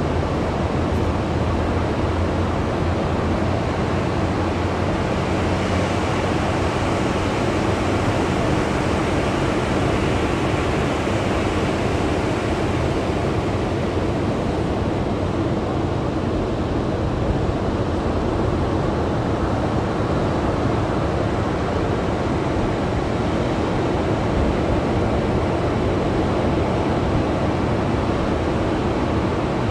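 Ocean surf breaking and washing up a sandy beach: a steady rushing wash that swells slightly between about six and twelve seconds in.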